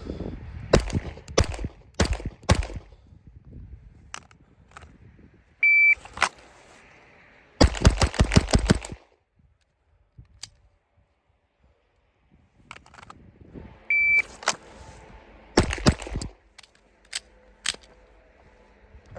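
Gunfire from a Geissele URGI 14.5-inch 5.56 AR-15 rifle: four single shots, then a short high beep followed by a rapid string of shots. After a quiet pause, a second beep, another rapid string, and a few more single shots.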